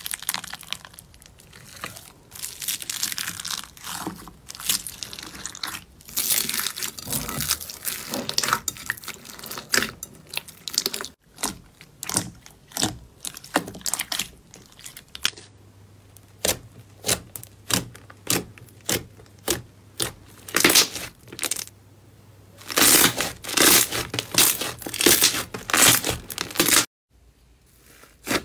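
Slime being squeezed and pulled apart close to the microphone, giving crackling, tearing sounds in repeated strokes, about one a second in the middle and then a denser run of crackling near the end.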